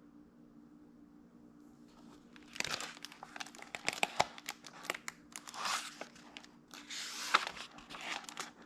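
A picture book being handled and opened, its cover and pages rustling in several spells with small sharp clicks, starting about two and a half seconds in.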